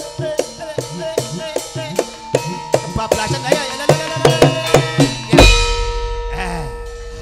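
Javanese gamelan playing: kendang drum and bronze kettle-gongs striking in a regular beat, about two or three strokes a second. About five seconds in a heavy stroke lands and a deep, low gong tone rings on and slowly dies away.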